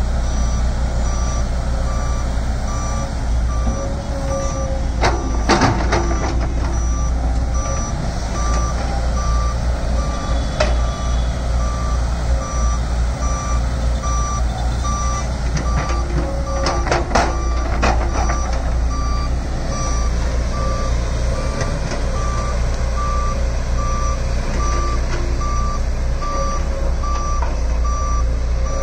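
Volvo crawler excavator's diesel engine running steadily under a regular, evenly spaced electronic alarm beep. Short clusters of knocks and clatter come about five seconds in and again about seventeen seconds in.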